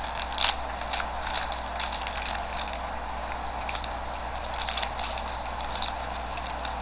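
Wrapper of a Bowman baseball card pack crinkling and tearing as it is opened by hand, in short irregular crackles.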